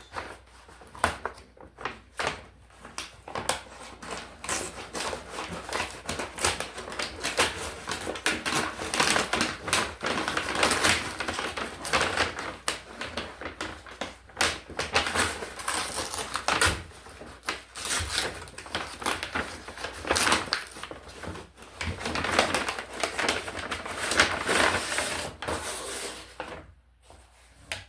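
Cardboard box and packaging being opened and handled by hand: a dense, irregular run of crackles, rustles and clicks that stops near the end.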